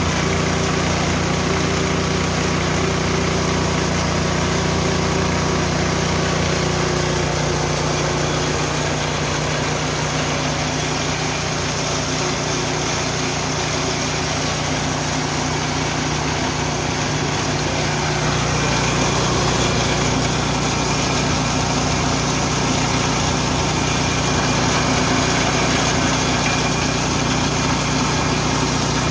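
Richi KD 350 rice and corn milling machine running steadily with a loud, continuous mechanical noise. Its low hum shifts partway through and then settles again.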